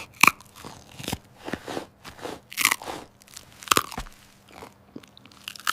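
A run of crisp crunches at uneven intervals, roughly one to two a second, with fainter crackles between them.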